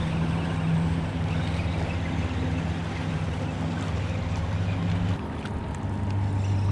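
A nearby motorboat's engine runs with a steady low drone, its tone shifting about five seconds in, over wind and water noise.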